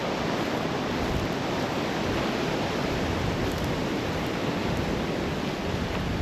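Very strong prairie wind of about 50 mph blowing across the microphone: a steady, dense rush of noise with no breaks.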